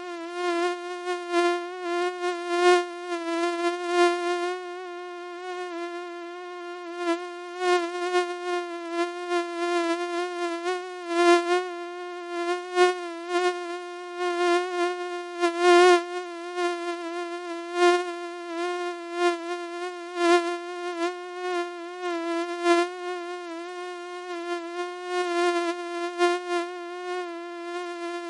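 Mosquito's high, steady wingbeat whine, wavering slightly in pitch and swelling and fading in loudness as if it circles close to the ear.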